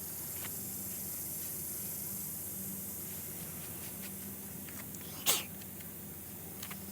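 Steady high-pitched insect chorus, with faint scattered clicks and one short, sharp hissing burst about five seconds in.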